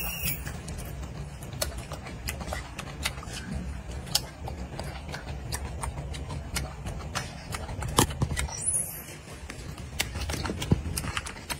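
Irregular sharp clicks and taps very close to the microphone over a low steady rumble, a couple of them louder near the end.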